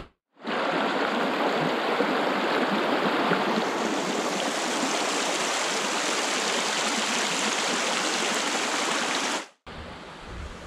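Small mountain stream running, a steady, even rush of water. It cuts in sharply just after the start and cuts off suddenly about a second before the end.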